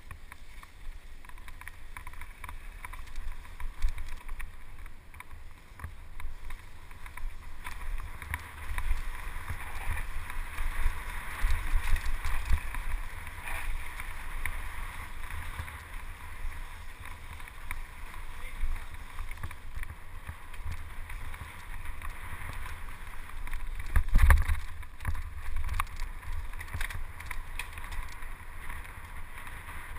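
Mountain bike riding along a dirt trail: uneven wind buffeting on the microphone with a steady hiss and rattle from the tyres and bike, and one hard jolt about three-quarters of the way through.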